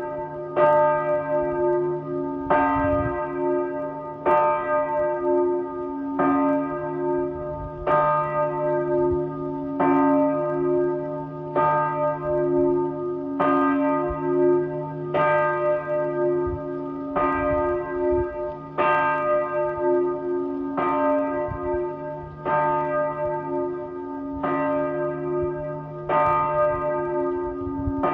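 Small church bell ringing in steady swings, one strike about every two seconds, each with a long, sustained hum between strokes; the recording is slowed to half speed.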